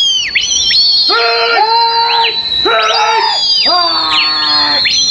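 Several voices calling out in long, held, high-pitched hoots and shouts that overlap and repeat about once a second, with a steady shrill whistle-like tone and warbling high notes above them.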